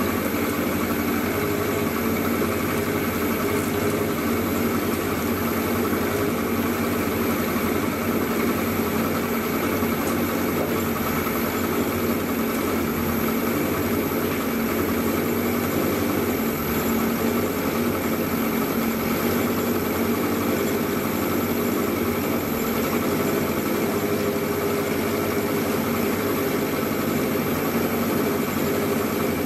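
Milling machine with a new motor and a lead-filled frame running steadily as a roughing end mill chews through steel bar stock under flood coolant. The cutting noise and motor tones stay even, with no pauses.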